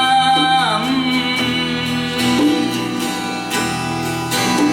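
Music: a song's passage between sung lines, with a held note near the start sliding down in pitch.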